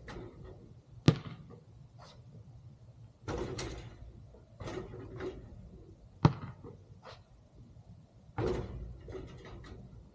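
A basketball during shooting practice: two sharp single smacks, the loudest sounds, about a second in and past the middle, and three longer rattling clangs in between, typical of the ball striking the rim and backboard.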